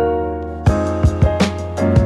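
Background music: held keyboard-like chords, joined by a percussive beat less than a second in.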